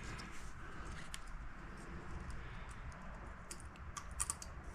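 Faint light metallic clicks and ticks of a feeler gauge set being handled, its blades tried in an engine's valve clearance to check valve lash; the clicks come sparsely and cluster near the end.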